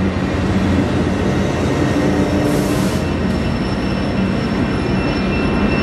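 Amtrak California bilevel passenger train passing close by, a loud steady rumble of wheels and cars, with its diesel locomotive going by partway through. A thin, high, steady wheel squeal comes in about two thirds of the way through.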